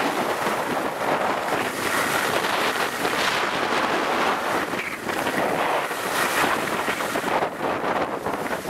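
Wind rushing over the microphone of a camera carried by a skier on the move, mixed with the hiss and scrape of skis turning on packed snow, swelling and easing from turn to turn.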